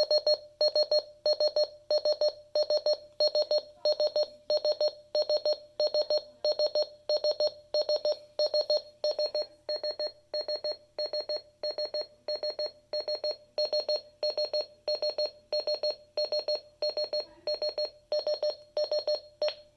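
RadioShack 12-993 alarm clock's electronic alarm going off: a steady train of short beeps, about two a second, at one fixed pitch, each beep a rapid pulsing buzz.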